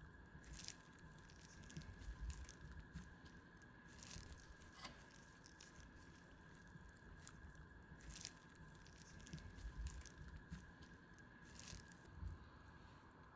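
Faint, soft crunching and squishing of raw shrimp being cut and pressed flat on a cutting board to snap the sinews and straighten them, with scattered small clicks over a faint steady hum.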